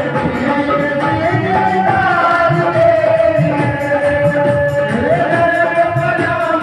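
Live Indian devotional bhajan music: a held, gliding melody from voice and keyboard over hand-played dholak drum rhythm.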